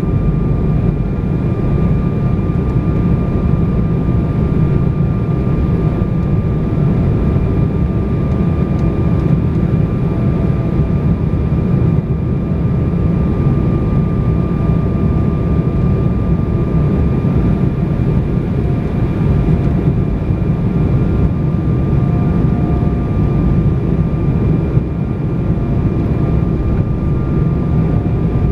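Steady cabin noise of a jet airliner in flight, heard from a window seat over the wing: a constant low rumble of engines and airflow with a steady high whine on top.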